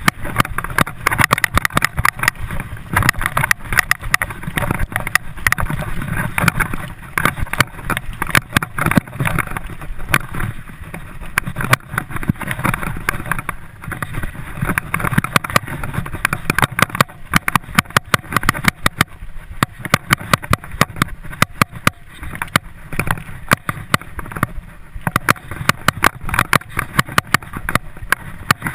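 Mountain bike ridden fast on a dirt forest trail: rapid, irregular rattling and knocking as the bike jolts over the rough ground, over a steady rush of tyre and wind noise.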